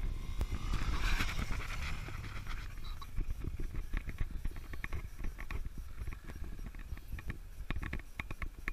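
Irregular clicks, taps and soft thumps from handling a handheld camera as it is moved about, over a steady low rumble.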